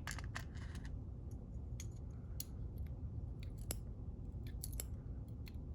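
Scattered small, sharp metallic clicks and ticks of pins and tools being handled as a Yale pin-tumbler lock cylinder is disassembled and its pins are taken out, over a steady low hum.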